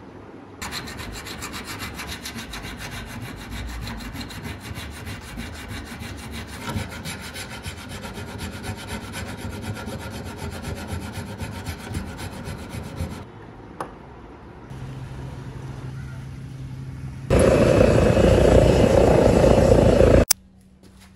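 Hand file rasping along the edges of a steel shuriken forged from a bearing ball, repeated strokes for about twelve seconds, sharpening the blades. After a short lull and a low hum, a forge runs with a loud steady rush that cuts off suddenly near the end.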